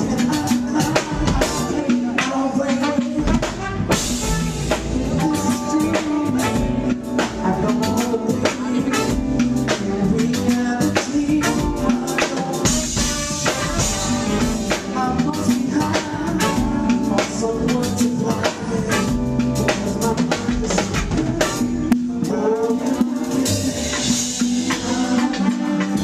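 Live neo-soul band playing, a drum kit keeping a steady beat under a male singer's voice.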